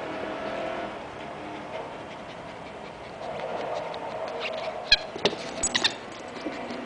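Purple rubber squeaky toy squeaked by a Welsh terrier chewing it: a sharp squeak about five seconds in, then a quick run of four or so more squeaks within the next second.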